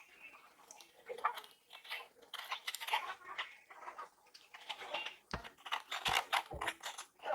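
Close-up eating sounds of young coconut: quick, irregular wet clicks and smacks, with three low thumps between about five and seven seconds in.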